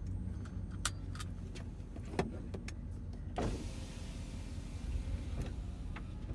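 Sounds in a parked van's cab: a steady low hum under scattered clicks and knocks. About three and a half seconds in, a rushing whir runs for about two seconds.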